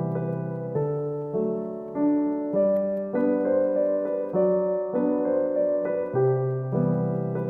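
Background music: a gentle piano melody with chords changing about every half second to second.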